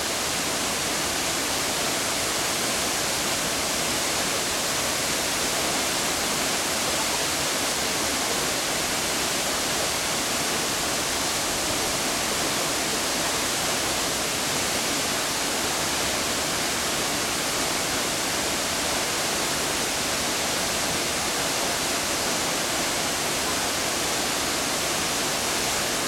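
Jōren Falls, a tall, full waterfall, pouring into its plunge pool: a steady, loud rush of falling water that never changes.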